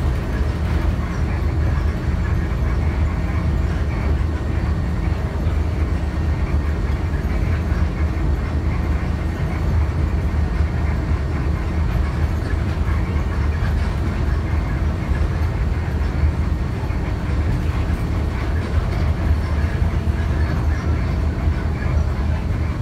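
Steady low rumble of a city bus on the move, its engine and road noise heard from inside the passenger cabin.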